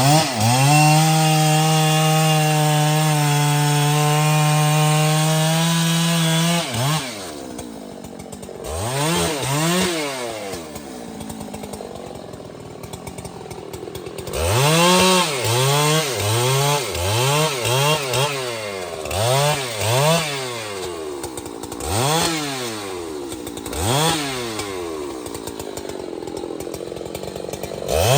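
Large two-stroke chainsaw held at high revs for about six and a half seconds, then dropping back and revved up and down in short throttle blips every second or two.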